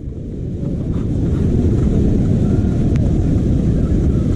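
River water rushing over rock shelves at the head of a waterfall: a steady low rush that builds over the first second and then holds.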